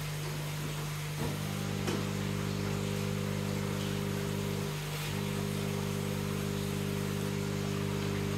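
New 50-watt, 70-litre-per-minute aquarium air pump running with a steady electric hum, not very noisy. A click comes about a second in, after which the hum grows fuller, and it briefly thins out a little past halfway.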